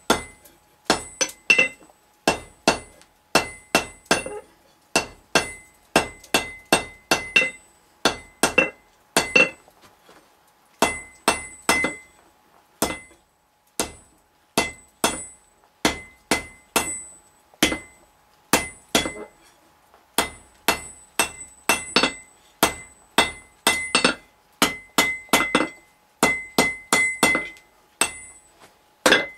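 Blacksmith's hand hammer striking red-hot bar stock on an anvil, about three blows a second in runs with short pauses between them, each blow ringing with a metallic ping.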